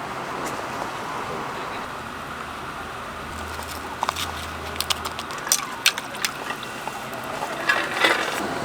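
Steady outdoor background noise, with a run of light clicks and taps in the second half.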